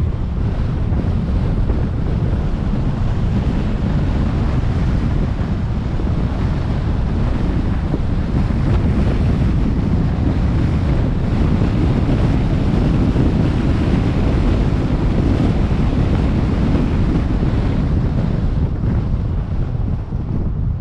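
Steady, loud wind rushing over a camera microphone on the front of a moving SUV, a constant low rumble mixed with road noise from the car driving at speed.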